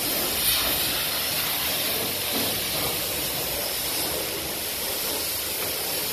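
High-pressure spray wand of a self-serve car wash spraying water in a steady hiss.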